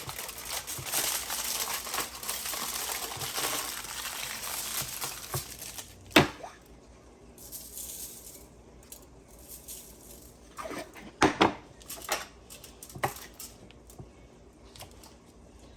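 Aluminum foil crinkling and crackling as it is folded and wrapped around an ear of corn, for about the first six seconds. Then a sharp knock, and later a few scattered light clicks and taps.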